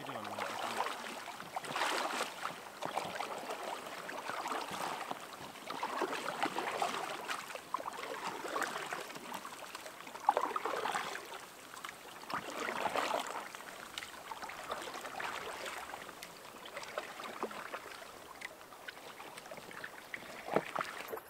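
Paddle blades dipping and splashing in calm water as two people paddle an inflatable packraft canoe, strokes coming about every two seconds and growing fainter near the end.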